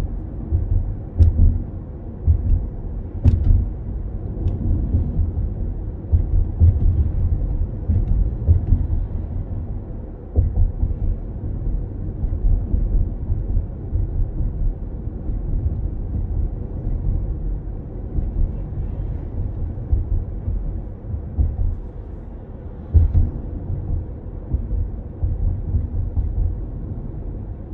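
Low rumble of a car driving along a road: road and engine noise that rises and falls unevenly.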